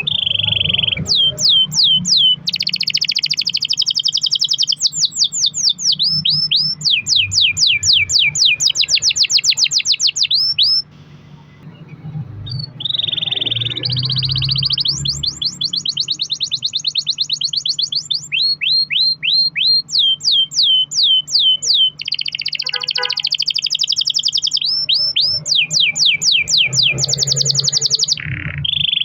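Canary singing a long, continuous song of fast rolled trills and runs of quick falling whistled notes, each phrase repeated many times. There is a brief pause about eleven seconds in.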